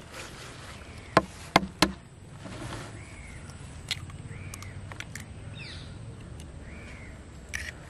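An egg tapped sharply three times in quick succession against the rim of a plastic bucket to crack it. Smaller clicks and crackles follow as the shell is broken open and pulled apart over the flour.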